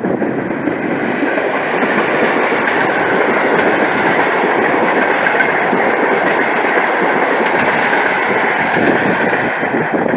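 A train passing close by, its wheels running on the rails in a loud, steady rumble.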